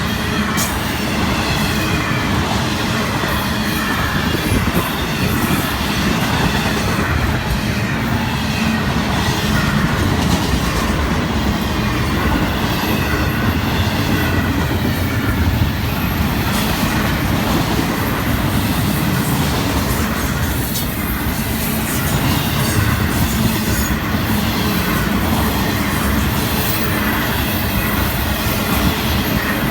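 Florida East Coast Railway all-intermodal freight train's cars rolling past steadily, the wheels running loud and continuous on the rails.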